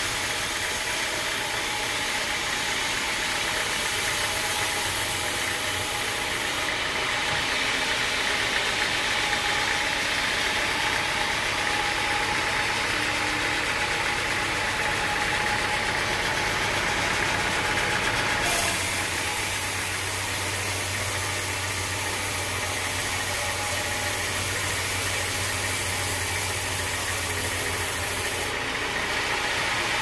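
Band sawmill running, its blade cutting lengthwise through a teak log: a steady machine drone with a steady whine. The sound shifts abruptly about two-thirds of the way through, when a low hum comes in.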